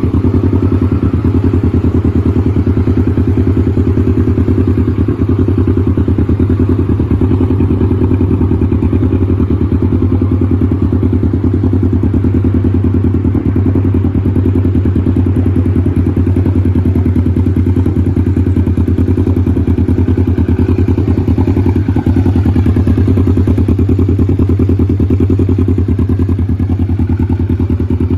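Kawasaki Ninja 650's parallel-twin engine idling steadily, with an even, rapid pulse and no revving.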